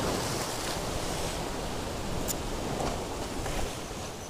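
Sea surf breaking and washing over shoreline rocks, a steady rushing wash.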